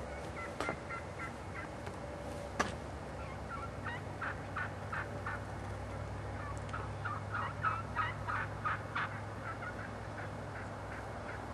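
A flock of wild turkeys calling: runs of short, repeated notes, several a second, thickest in the middle. Two sharp clicks, one under a second in and a louder one about two and a half seconds in.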